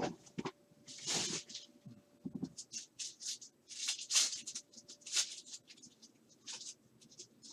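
Sports-card pack wrappers crinkling and tearing and cards being handled: irregular short rustles and crackles.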